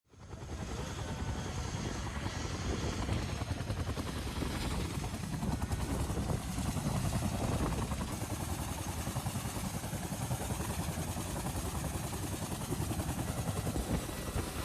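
Helicopter running close by: a steady rotor and engine noise with rapid low beating, rising in over the first half second after a silent gap.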